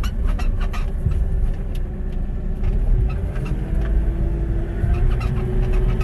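JCB telehandler's diesel engine running steadily as the machine drives along, heard from inside the cab, with scattered light knocks and rattles.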